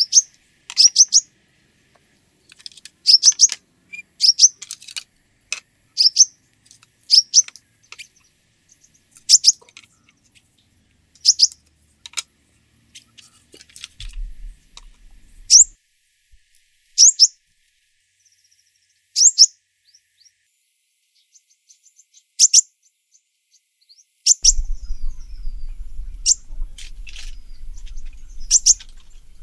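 A bird calling: short, sharp, high chirps, single or in quick pairs, every second or two. A low rumble comes in near the end.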